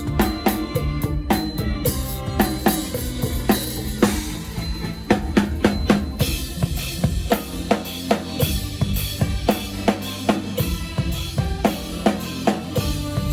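Drum kit played live in a mor lam band, with kick and snare keeping a steady beat over bass and other band instruments. A cymbal wash comes in about four seconds in.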